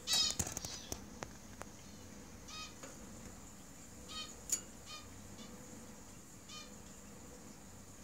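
Society finches (Bengalese finches) in a straw nest giving short chirping calls, four or so spaced a second or two apart. A louder sharp burst comes right at the start and a single click about halfway through.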